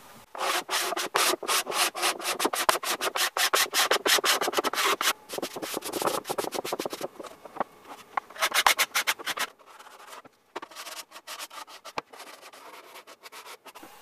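Sanding sponge rubbed by hand along the edges of a wooden drawer divider in quick back-and-forth strokes, lightly sanding edges that are too rough to scrape after a coat of oil polyurethane. The strokes turn fainter and sparser about nine and a half seconds in.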